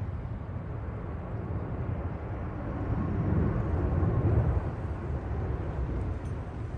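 Boeing 787 airliner on final approach, its jet engines a steady low rumble that swells about midway and then eases.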